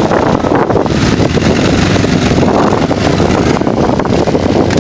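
Off-road ATV engine running steadily, mixed with wind buffeting the microphone.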